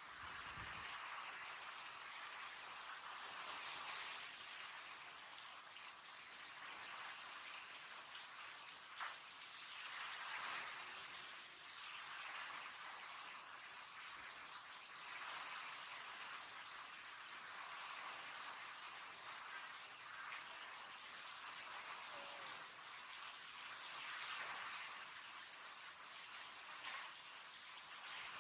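Heavy rain falling steadily and splashing on the wet ground.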